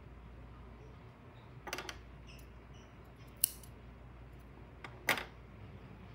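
Three short, sharp snips and clicks about a second and a half apart: scissors cutting yarn and being handled on a wooden tabletop.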